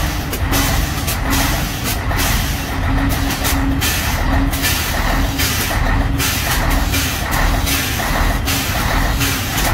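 Scania 113H truck's air suspension letting out air, a loud hiss in uneven spurts as the truck is lowered, over the low rumble of its idling diesel engine.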